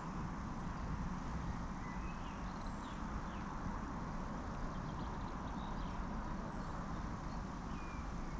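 Steady outdoor background of low rumble and hiss, with faint, scattered bird chirps.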